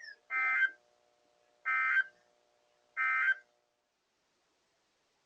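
Three short bursts of Emergency Alert System SAME digital data, about a second and a third apart: the end-of-message code that closes an EAS alert.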